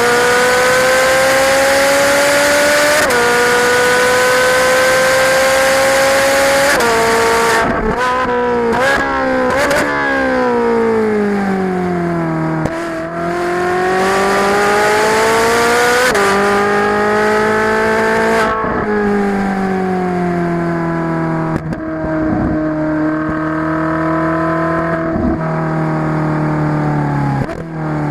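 A Ferrari 458's V8 heard from onboard, driven hard on track. The revs climb under acceleration, broken by quick gear changes. A cluster of sharp throttle blips on the downshifts comes about 8 to 10 seconds in, then the revs fall away and climb again as it accelerates out and shifts up. There are further rises and falls through later corners.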